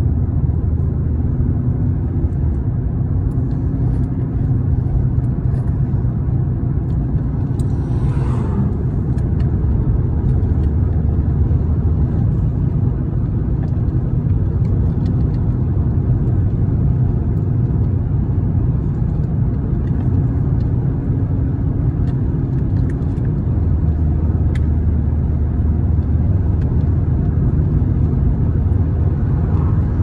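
A car driving along an open road, heard from inside the cabin: a steady low rumble of tyre and engine noise.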